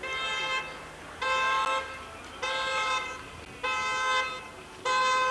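A vehicle horn sounding five evenly spaced toots, each about half a second long and a little over a second apart.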